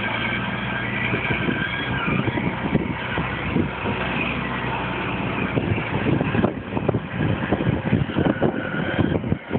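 Diesel engine of a Renault 370 tipper truck running as the truck drives off across the yard. From about six and a half seconds in, uneven buffeting noise comes over it.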